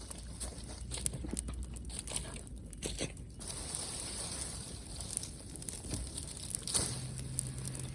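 Wood campfire crackling, with irregular snaps and crunches of burning and handled wood.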